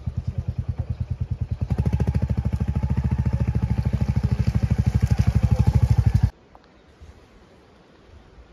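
Royal Enfield Hunter 350's single-cylinder engine running at low revs with an even, rapid beat of exhaust pulses. It opens up a little about two seconds in, then cuts off suddenly after about six seconds.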